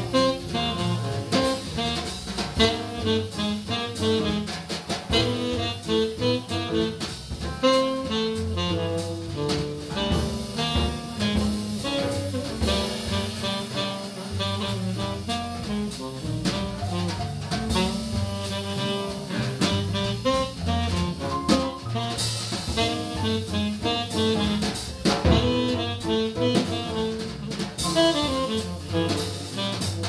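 Live small-group jazz: a tenor saxophone plays the lead line over double bass, drum kit, guitar and piano.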